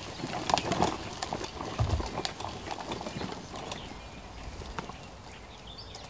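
Folding camping wagon pulled over grass: its wheels and frame rattle and knock irregularly, with footsteps, loudest in the first two seconds, then easing off as it rolls to a stop.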